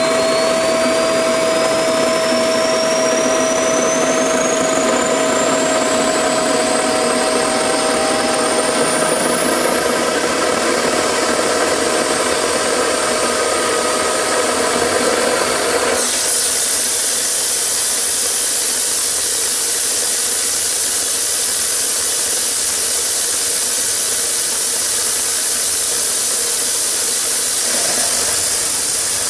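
Turbocharger-based homemade gas turbine spooling up: a thin whine climbs steadily in pitch for about fifteen seconds over a steady lower hum. About halfway through, the hum stops abruptly and the sound turns into a loud, steady rushing hiss.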